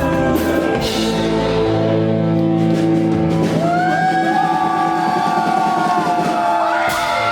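Live rock band playing in a hall: drums and guitars for about the first two seconds, then the drums drop out under ringing, sustained chords with bending held notes.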